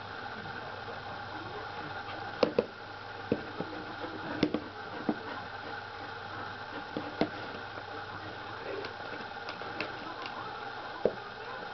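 Irregular light clicks and knocks of paws and claws scrabbling against a hard plastic car-shaped pet bowl as a dog and a kitten play-fight, over a steady low hum.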